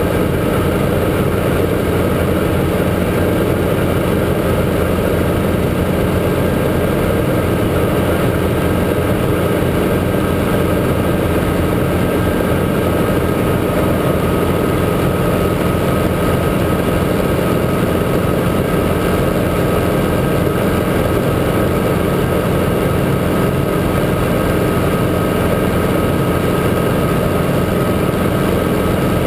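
Guimbal Cabri G2 helicopter in flight: its four-cylinder Lycoming piston engine and rotors make a steady, unchanging drone, with a faint steady high whine over it.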